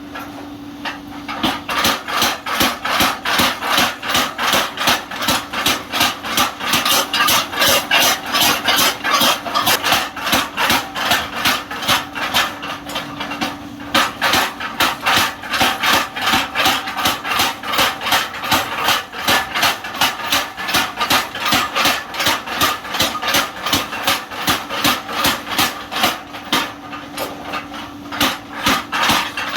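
Blacksmith's motor-driven power hammer striking metal in a steady rhythm, about two to three blows a second, over the constant hum of its motor. The blows stop briefly about 13 seconds in, then resume.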